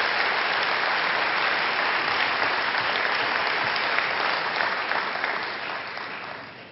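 A large audience applauding, steady clapping that dies away over the last second or two.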